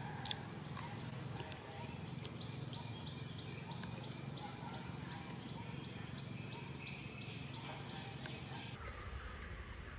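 A run of short, high chirps at an even pace, about three or four a second, from an animal, over a steady low background hum. There is a sharp click just after the start, and near the end the background turns abruptly to a low rumble.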